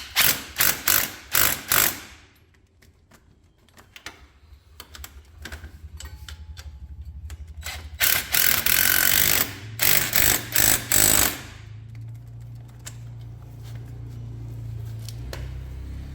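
Hand tools working on the ATV's front suspension. First comes a run of quick metallic ratchet clicks, about four a second. About eight seconds in there is a loud noisy burst lasting about a second and a half, followed by another run of quick clicks.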